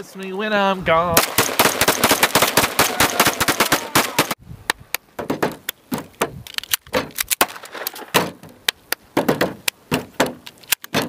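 Two pistols fired together in a rapid, dense string of shots for about three seconds, after a sung note ends. Then a run of irregular knocks and taps of hands and a pistol on a tabletop.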